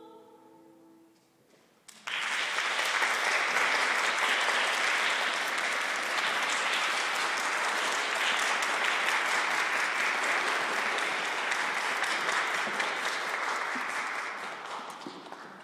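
The last sung note fades out, then about two seconds in a concert audience starts applauding, steady clapping that dies away near the end.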